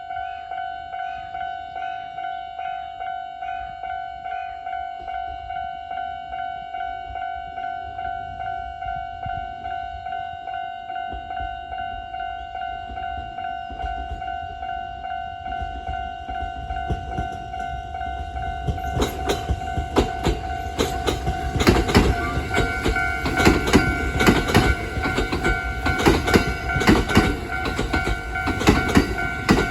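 Japanese level-crossing bell ringing with a steady repeating tone. A Kintetsu Yamada Line train comes in as a low rumble from about halfway through, then passes loudly over the last third, its wheels clattering over the rail joints on top of the bell.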